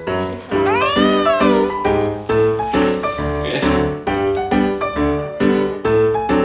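A domestic cat meows once, about a second in, the call rising then falling in pitch, over light background piano music with a steady beat.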